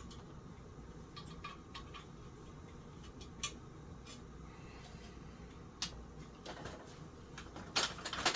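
Scattered light clicks and taps from hands and tools working on a ceiling fan during disassembly, with a brief, louder clatter near the end.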